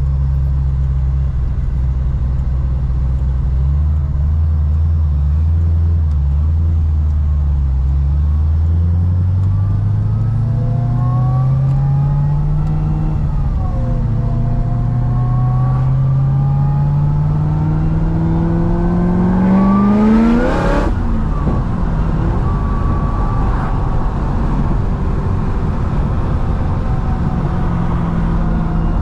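Modified supercharged 6.2 L V8 of a C6 Corvette ZR1 cruising steadily, then accelerating hard: the engine note climbs, dips once at a gear change, and climbs again to a peak about twenty seconds in. It ends there with a brief sharp loud burst as the throttle comes off, then settles back to a steady low drone.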